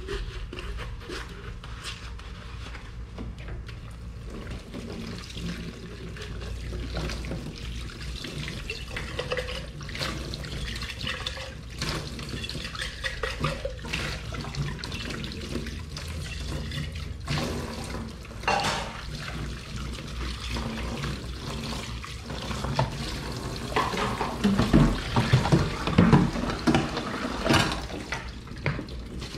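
Dishes being washed at a kitchen sink: running tap water with frequent clinks and knocks of dishes and utensils, busier and louder near the end.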